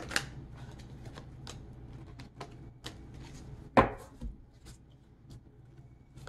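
Tarot cards being handled and drawn from the deck: a run of light snaps and taps, with one louder knock a little under four seconds in as cards go down on the table.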